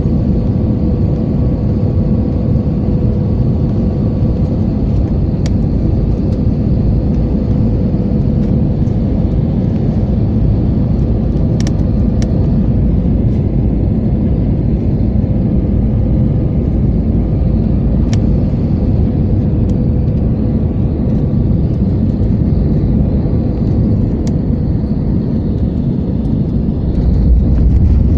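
Jet airliner cabin noise on final approach: steady engine and airflow noise with a steady engine hum. About a second before the end, a louder low rumble sets in as the wheels touch down on the runway.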